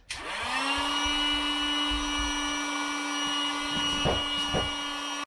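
Electric air pump switched on, spinning up and then running with a steady hum as it sucks the air out of a PVC inflatable boat's tubes. A few light knocks about four seconds in.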